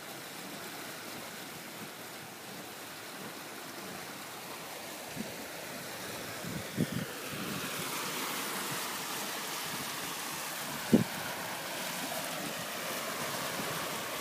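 Water rushing and splashing along the hull of a sailboat under way, with wind on the microphone; the rush grows louder about halfway through. A few short low thumps stand out, the loudest about three quarters of the way through.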